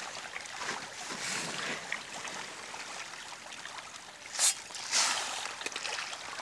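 A dense crowd of pond fish churning the water surface, a steady rush of small splashes. Two louder, sharper splashes come about four and a half and five seconds in.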